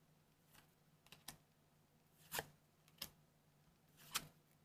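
WIXOSS trading cards being slid off one another in the hand, giving a few soft, faint card flicks at uneven intervals, the clearest a little over two seconds in and about four seconds in. A faint steady low hum lies underneath.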